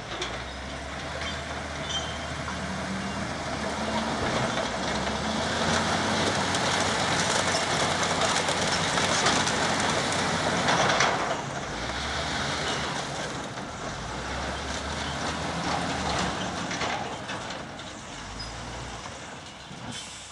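Large diesel crawler crane running, with a low engine drone that rises and falls under loud, steady mechanical clatter and grinding from the machine. The noise is loudest about ten seconds in.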